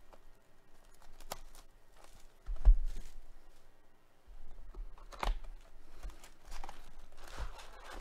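Plastic shrink-wrap being torn and crinkled off a cardboard trading card box in irregular crackly rustles, with a single thump between two and three seconds in, then further crinkling and handling of the box.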